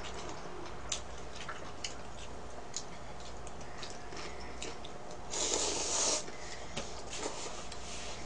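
Person eating instant ramen noodles with chopsticks: scattered small clicks and mouth sounds, then a loud slurp of noodles lasting about a second, a little past halfway.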